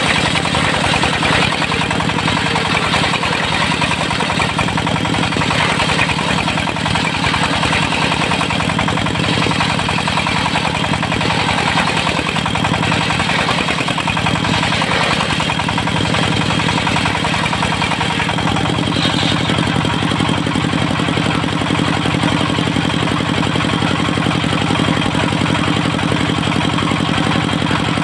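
Diesel engine of a mobile circular sawmill running steadily, with the saw spinning. A harsher, higher noisy layer sits over the engine note and eases about two-thirds of the way through, when the engine's low note becomes fuller.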